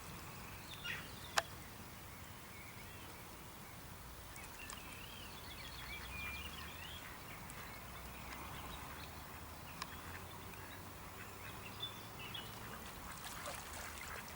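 Wild pond birds calling, including ducks quacking, scattered short calls over steady outdoor background noise, with one sharp click about a second and a half in.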